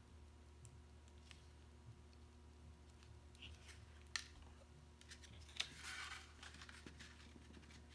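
Faint handling of cardstock on a cutting mat: soft paper rustling and light taps, with two sharp ticks about four and five and a half seconds in, over a low steady hum.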